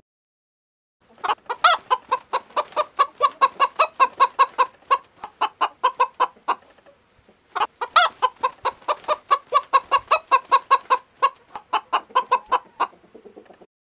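Chickens clucking in quick short calls, about five a second, in two long runs with a brief pause around the middle.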